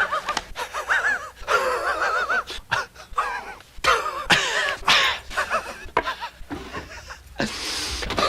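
A man's wheezing laugh: a string of short, high, wavering laughing gasps broken by breathy wheezes.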